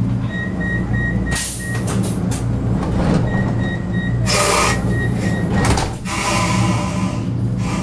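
Inside a Vienna U-Bahn carriage: a steady low hum from the train, two runs of short high-pitched beeps typical of the door-closing warning, and several loud hissing rushes as the sliding doors work.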